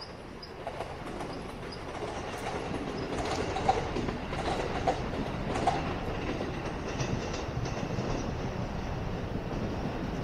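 JR Keihin-Tohoku Line electric commuter train running past on the tracks, its rumble building over the first few seconds and then holding steady. The wheels clack sharply over rail joints about three times in the middle.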